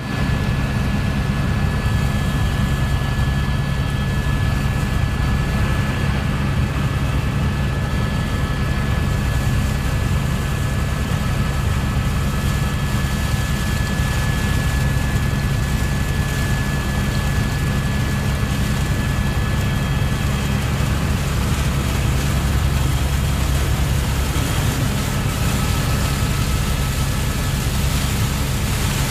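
Steady roar of a fast glacial river, the Dudh Kosi rushing over rocks below, with no let-up and the most weight in the low end.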